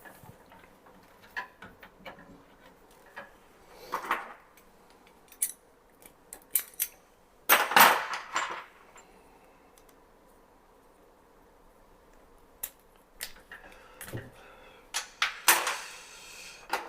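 Scattered clicks, snips and handling noises of network cable being prepared and punched down on a 110 block. Two louder noises about a second long come at about seven and a half and about fifteen seconds in.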